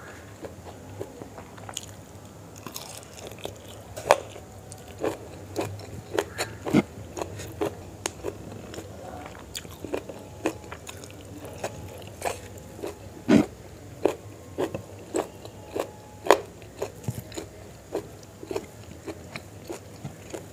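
Close-miked chewing and biting of chicken liver and gizzard curry with rice: an irregular run of wet mouth clicks and smacks, with a few sharper, louder ones.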